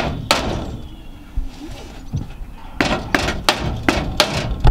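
Knocking as a timber batten is fitted into an aluminium greenhouse frame. Two knocks come at the start, then a quick run of about eight sharp knocks, roughly four a second, in the second half.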